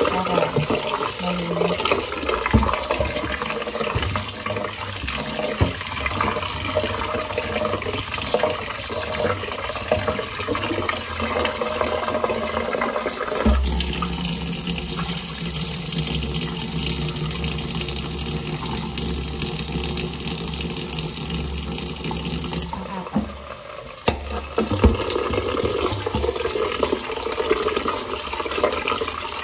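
Kitchen tap running into a stainless steel pot as glutinous rice is washed in it, the water swishing and splashing, with a few sharp knocks in the first half. About halfway through the water turns to a steadier, brighter rush for some nine seconds, then the uneven splashing returns.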